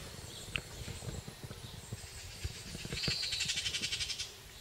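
A songbird gives a clear whistled note about three seconds in, then a fast, even trill lasting just over a second. Small scattered knocks and splashes of canoe paddling run underneath.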